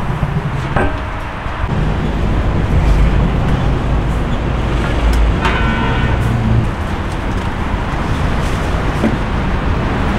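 Steady low rumbling background noise, heaviest a few seconds in, with a short high squeal about five and a half seconds in.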